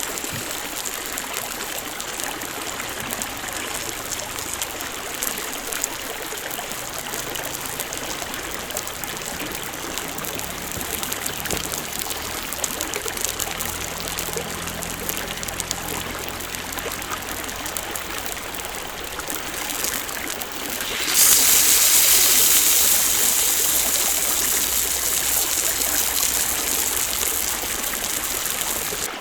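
Campfire crackling under a steady hiss. About 21 s in, a much louder sizzling hiss starts suddenly and slowly dies down, as Kuroge Wagyu beef goes onto the hot grill.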